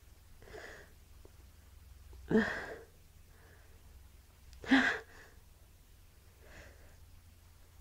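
A woman's breathing between sneezes in a sneezing fit: two short, sharp breaths about two and a half and five seconds in, with fainter breaths before and after them.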